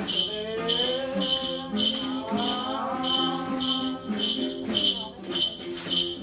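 Music for a Tai xòe circle dance: singing with a gliding melody over steady lower tones, set to an even jingling percussion beat of about two strokes a second.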